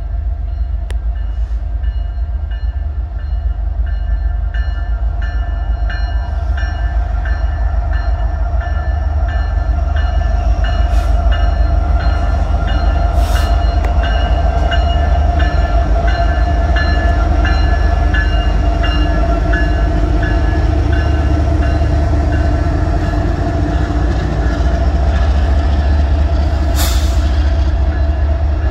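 Freight train rolling past on the rails: a steady low rumble with a steady tone riding over it and a few sharp clicks.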